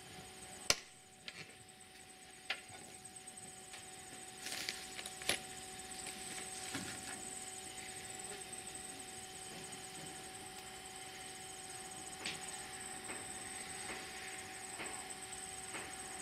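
A few sharp clicks and taps as a plastic electrical enclosure is handled and pressed against a wooden post. Behind them runs a steady high-pitched drone like summer insects.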